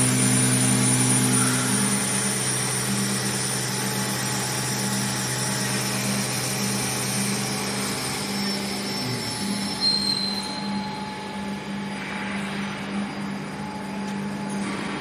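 Steady drone of heavy factory machinery, with several held low tones and a faint high whine, the low tones shifting a little about nine seconds in. A short sharp sound comes about ten seconds in.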